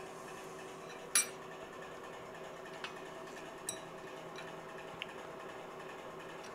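Steel pushrods of an Allis-Chalmers C engine clinking against each other and the block as they are set into the valve holes onto the lifters. One sharp ringing clink comes about a second in, then a few lighter ticks, over a steady low hum.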